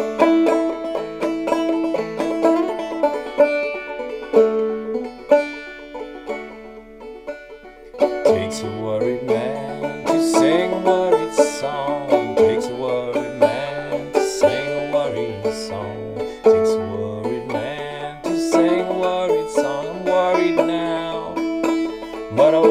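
Banjo played clawhammer style in double C tuning pitched up toward double D, picking out a melody. From about eight seconds in, a man's voice sings along with it.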